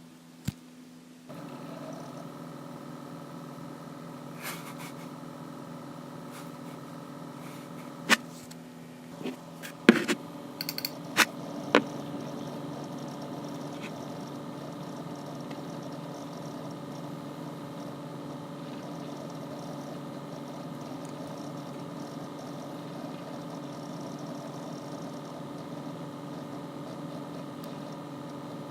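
Apple iMac G4 computer running with a steady purring hum of several held tones, which starts abruptly about a second in. A few sharp clicks come near the middle.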